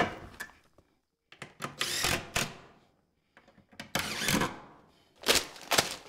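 A sharp wooden knock as a plywood divider is set into a wooden brooder pen, followed by several short, irregular scrapes and rustles of handling.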